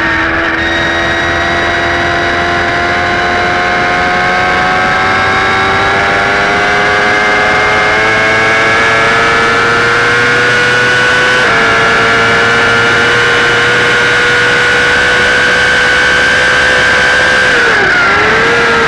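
Yamaha YZF-R6 race bike's inline-four engine pulling hard at high revs, its pitch rising slowly, with a quick upshift about eleven seconds in and a brief dip in revs near the end, over wind rush on the onboard camera.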